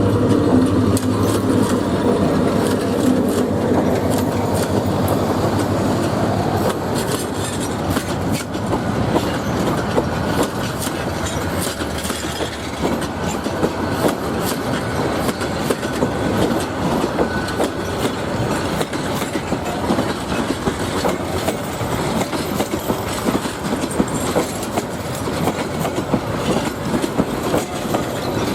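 Train running on the rails, its wheels clattering rapidly over the track. A steady low hum is heard for the first six seconds or so, then fades.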